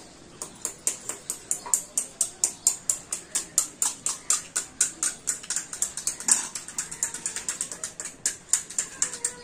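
Rapid, evenly paced sharp taps, about five a second, keeping up for about nine seconds.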